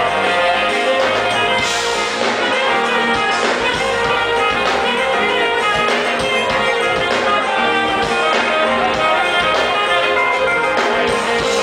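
Smooth-jazz band playing live: electric guitars, bass and keyboards over drums, in a steady groove.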